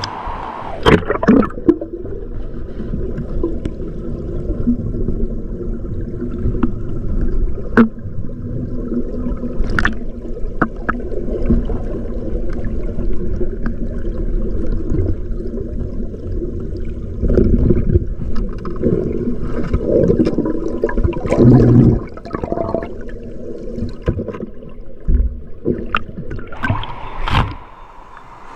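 Muffled water gurgling and sloshing, with scattered sharp clicks and knocks.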